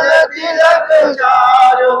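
A group of men singing a Hindu aarti hymn to Lord Vishnu together, with hand claps.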